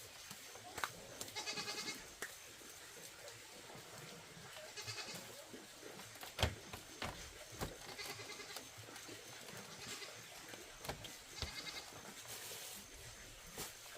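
Repeated animal calls: short, wavering calls every few seconds, with a sharp knock about six and a half seconds in.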